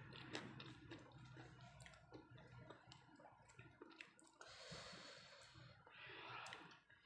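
Faint wet clicks of eating by hand: fingers working boiled sweet potato leaves through sambal, along with mouth sounds. Two breaths are heard, about four and a half and six seconds in.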